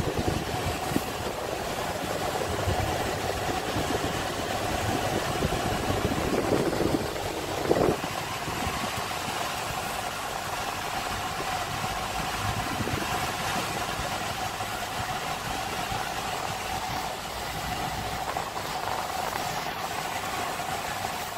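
Car engine and road noise heard inside the cabin of a car moving slowly in town traffic, with a steady hum and a short knock about eight seconds in.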